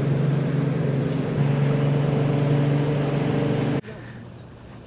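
Boat's outboard motor running steadily at cruising speed, heard from on board. It cuts off suddenly about four seconds in, leaving a much quieter, steady hum.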